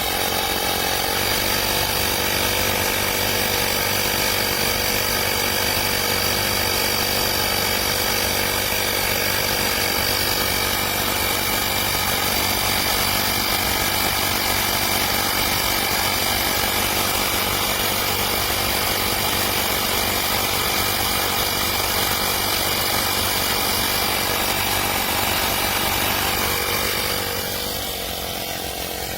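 Portable 12 V electric tyre inflator running steadily, its small piston compressor giving a loud, even buzz. Near the end the sound turns a little quieter and shifts in pitch.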